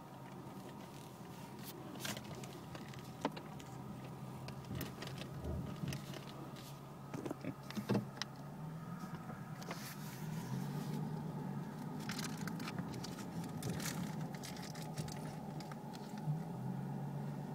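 Ford Mustang heard from inside the cabin, its engine running slowly on a rough dirt track, the engine note growing a little louder about halfway through. Scattered knocks and clicks come from the car going over the uneven ground.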